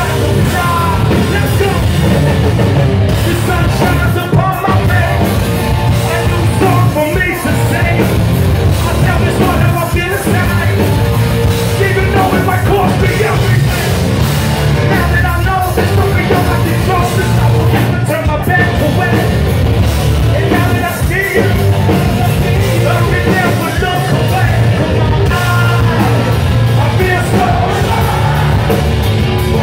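Live nu-metal band playing loud: electric guitar, bass guitar and drums, with a lead singer singing and shouting into a microphone.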